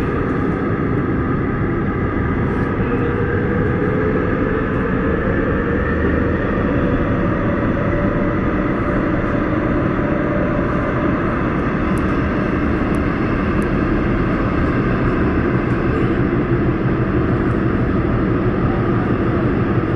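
Daejeon Metro Line 1 subway train running through a tunnel, heard from inside the car: a steady, loud rumble of wheels on rail, with a whine over it that rises slightly a few seconds in and then holds.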